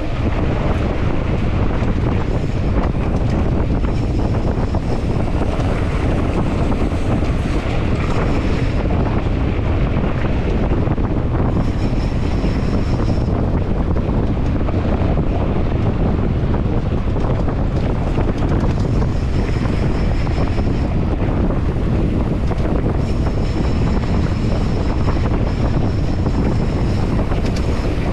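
Steady wind buffeting the rider's camera microphone while riding a mountain bike, a constant low rumble with no breaks.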